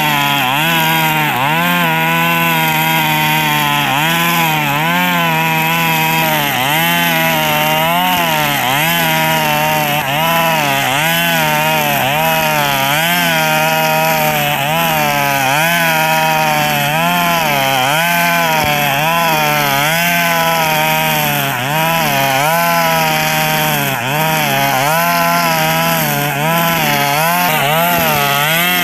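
KNC 4400 brush cutter engine running loud at high revs, its pitch dipping and recovering about once a second as the trimmer line bites into tall grass. Its exhaust is rusted through and holed, which makes it this loud, like an old warship.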